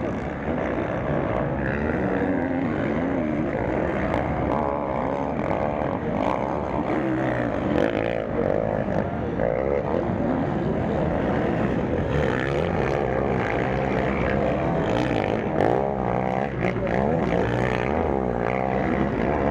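MX1-class motocross bikes racing on the track, their engines revving up and down with overlapping, constantly shifting pitches.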